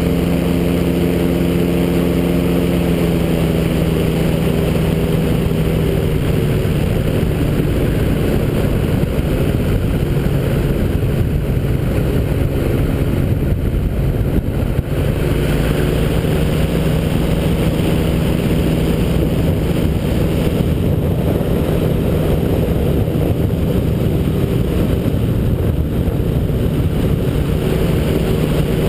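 Ultralight trike's engine running steadily in flight, heard from the open cockpit with wind rushing over the microphone. The engine note dips slightly in the first few seconds, then holds steady.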